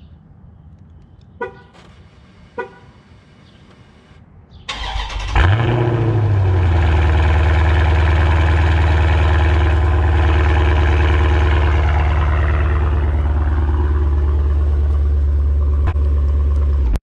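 Two short chirps, then the 2019 Dodge Challenger Scat Pack's 392 HEMI V8 cranks and starts about five seconds in. It flares up in revs and settles into a steady idle, heard close to the exhaust tip. The sound cuts off suddenly near the end.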